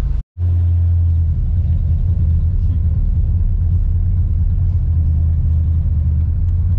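Small-block Chevy V8 of a 1991 Chevrolet S-10 pickup running, heard from inside the cab as a steady low drone.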